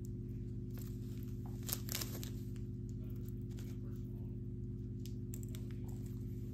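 Faint rustling and a few light clicks of a thin metal chain necklace and its small plastic bag being handled, with a couple of clicks about two seconds in, over a steady low hum.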